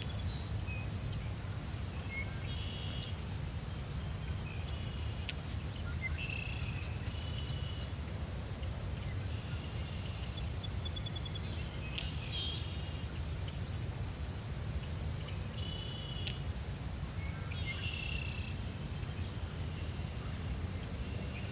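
Songbirds singing short, repeated high phrases every few seconds over a steady low rumble of outdoor background noise.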